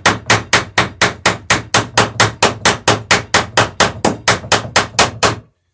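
A hammer peening over rivets in the wooden planking of a dory, in a fast, even run of sharp blows about four or five a second. The hammering stops near the end.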